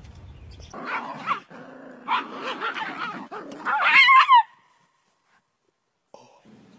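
Small dog yapping and yelping while it scuffles with a cat, loudest about three and a half to four seconds in, then cut off abruptly.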